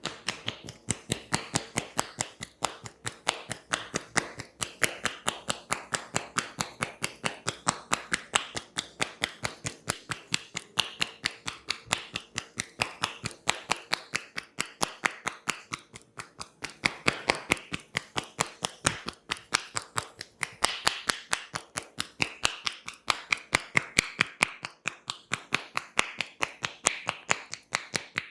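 Percussive massage tapping: hands slapping on a person's body in a fast, even rhythm of about four to five strikes a second.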